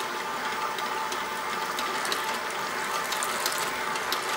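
KitchenAid KSMC895ER commercial stand mixer running steadily on speed 2, its motor and gears whirring as the dough hook turns through the flour mix.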